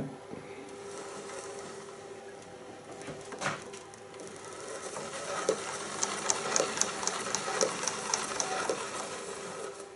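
Small mechanical handling sounds at a 35mm projector's drive pulley as a magnet is fitted for a speed sensor: a single clack, then a short run of light, evenly spaced ticks about three a second, over a faint steady hum.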